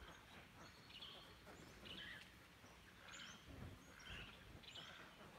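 Faint, scattered bird chirps, short high notes about once a second, over near-silent background.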